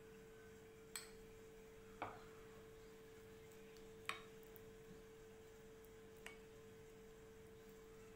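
Metal spoon stirring curd in a bowl: four short clicks of the spoon against the bowl, about a second apart at first and then more spread out, over a faint steady hum.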